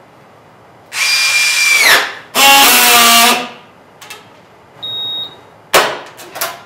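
Signode BXT2 battery strapping tool running an automatic cycle. Its motor runs for about a second to tension the polyester strap, its pitch dropping as it stops, then after a short gap runs again for about a second to friction-weld the seal. A short high beep follows, then a sharp click and a few lighter clicks near the end.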